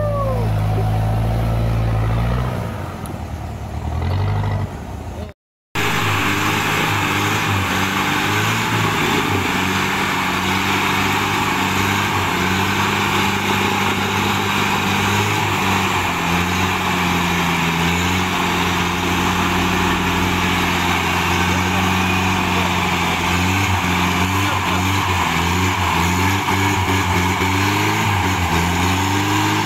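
Off-road 4x4 engines running and revving under load in mud, the pitch rising and falling. About five seconds in there is a brief cut to silence, after which a winched 4x4 strains up a slope with its engine working steadily.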